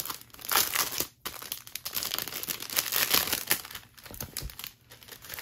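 Clear plastic packaging sleeve crinkling in irregular bursts as a stack of paper planner inserts is handled and pulled out of it. The crackling is loudest about half a second in and again around three seconds in.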